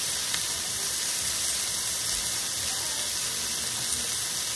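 Thin beef steaks sizzling in a hot ridged grill pan over a gas burner, a steady hiss as a second piece is laid in.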